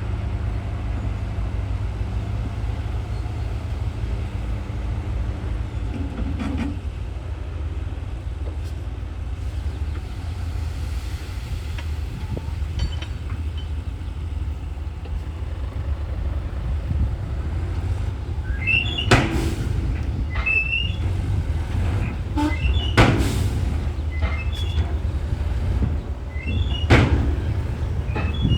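Crawler bulldozer's diesel engine running steadily under load, with sharp metallic clanks and short squeals from its steel tracks and blade, coming every second or few in the second half.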